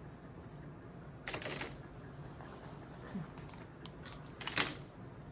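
A dog in a wire crate making two short scuffling, rustling noises, about a second in and again near the end.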